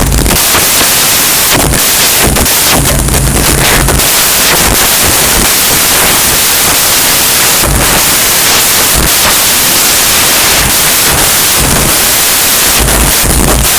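Very loud, steady rushing hiss across all pitches, with low rumbles coming and going.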